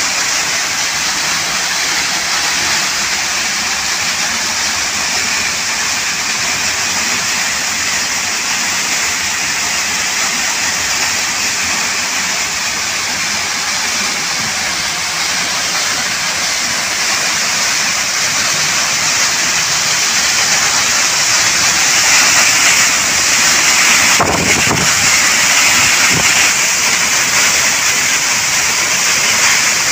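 Steady rushing roar of a three-tiered waterfall, water pouring continuously, swelling a little louder about two-thirds of the way through.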